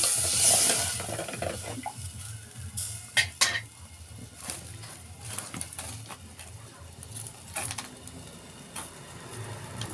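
A curry sizzling and simmering in a pot for about the first second and a half, then a metal spoon clinking against the cooking pot a few times.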